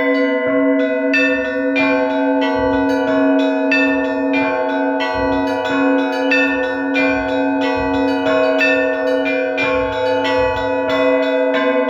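Orthodox church bells rung together in a rhythmic peal: several lower bells keep sounding beneath quick, repeated strokes on smaller, higher bells.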